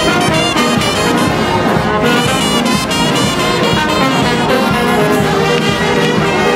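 Live brass band of trumpets and trombones playing over a steady bass-drum beat.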